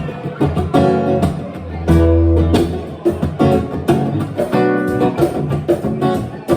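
Instrumental music: a guitar strummed in a repeating chord pattern, with low bass notes under it.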